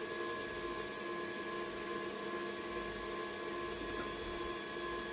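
Snapmaker U1 3D printer sitting powered on, giving a steady hum with several fixed tones.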